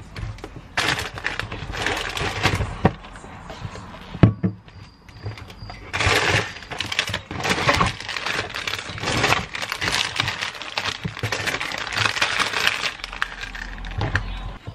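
Plastic food packets crinkling and rustling as they are handled, with a sharp knock about four seconds in.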